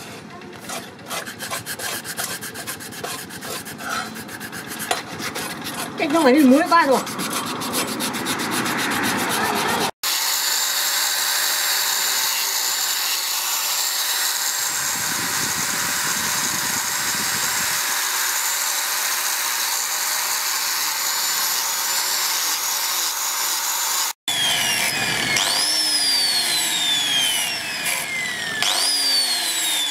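Sandpaper rubbed by hand over a carved wooden slingshot fork, with a brief louder wavering voice-like sound about six seconds in. After a cut a steady machine noise with a thin high whine runs, and near the end an angle grinder with a sanding pad spins up and slows down again and again as it sands the wood, its whine rising sharply and falling slowly each time.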